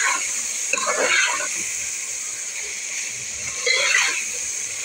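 A metal spoon stirring chicken wings with tomatoes and green chillies in an aluminium pot, scraping against the pot in three short bursts: at the start, about a second in and about four seconds in. Underneath runs a steady frying hiss.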